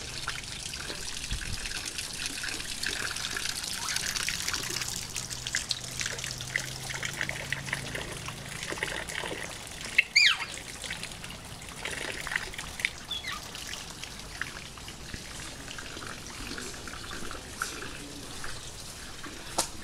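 Water trickling steadily, with scattered bird chirps over it. About halfway through, one loud, short bird call.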